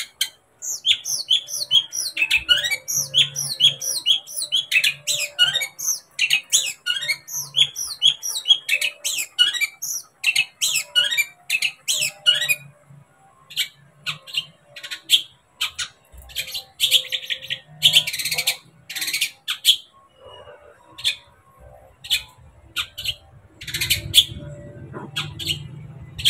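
Long-tailed shrike (cendet) singing: a fast, unbroken run of sharp, falling whistled notes for about twelve seconds. It then breaks into separate sharp clicks and short notes, with harsh rasping calls in the middle of that stretch.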